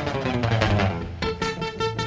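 Acoustic guitars played live: a falling run of notes, then short, sharply picked repeated notes from about a second in. The sound is a lo-fi cassette copy of a TV broadcast.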